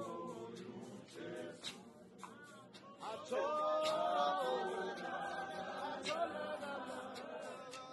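Church congregation singing a hymn unaccompanied, mostly men's voices together, swelling louder into a long held note about three seconds in. Short sharp knocks come roughly once a second.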